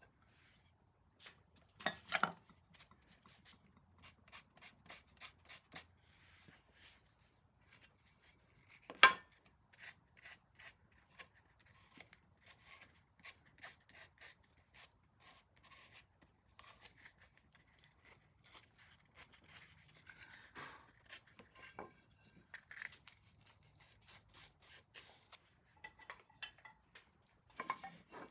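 Hand tools working wood while a tenon joint is fitted: many short scraping and rubbing strokes, broken by a few sharp knocks, the loudest about a third of the way through.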